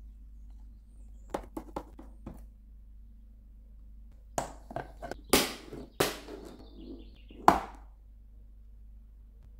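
Hand working wet flour-and-water pizza dough in a plastic tub: a few light taps and clicks at first, then louder wet squelches and slaps of the dough against the plastic, the sharpest slap near the end.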